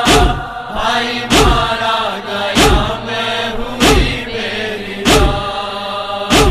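Interlude of a Shia noha (lamentation): chanted voices holding a slow mournful line, with six heavy thumps keeping time about every 1.3 s, the rhythmic chest-beating (matam) beat of a noha.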